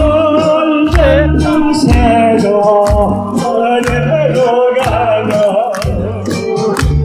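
A person singing through a microphone over loud musical accompaniment with a steady beat, the bass pulsing about once a second.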